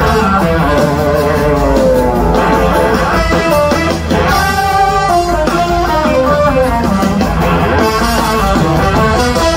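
A rock band playing an instrumental passage live. Electric guitar lines run in front of bass and drums, the melody moving quickly note to note over a steady low end.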